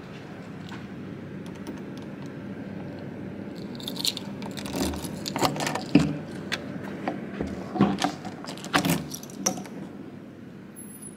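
Keys jangling and a key clicking in a brass door-lock cylinder as a hotel room door is unlocked and opened: a run of sharp metallic clicks and rattles starting about four seconds in, over a steady low hum.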